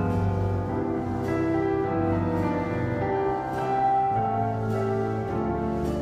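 Instrumental music with piano and held, sustained notes, playing steadily without a break.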